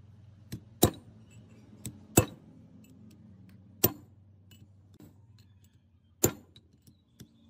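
Sharp metallic clinks and taps of metal tools and parts knocking together, about six at irregular intervals, some in quick pairs, over a faint low steady hum.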